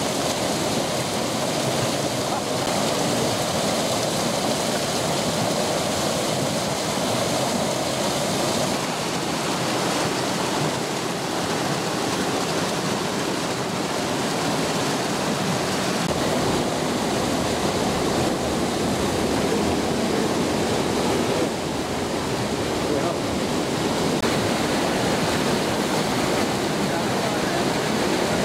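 Water pouring steadily over a concrete canal weir and churning in the channel below.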